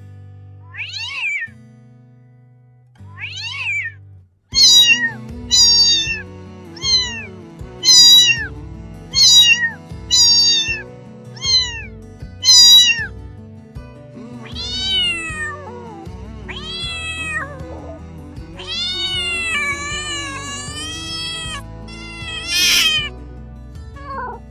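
Kitten meowing over and over: a few short, high, falling meows, then a quick run of about a dozen more, roughly one a second, then longer drawn-out meows, one of them long and wavering near the end. Background music comes in about four seconds in.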